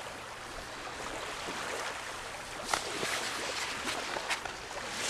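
Small waves lapping on a shallow sandy lake shore, a steady wash of water with a few short slaps in the second half.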